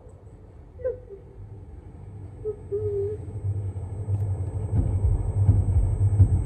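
A low rumble that swells steadily louder, strongest in the last couple of seconds, with a couple of faint short wavering whines in the first few seconds.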